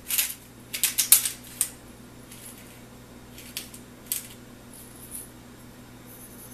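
Hand pepper grinder grinding peppercorns: a quick run of gritty, crunching twists in the first couple of seconds, then a few scattered, fainter twists.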